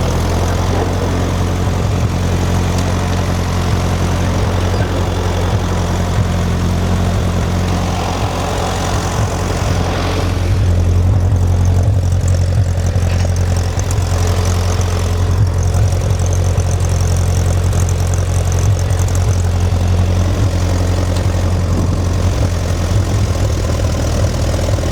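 1955 Ferguson TEA-20 tractor's four-cylinder petrol engine running steadily, brought back to life after sitting unused for about 40 years.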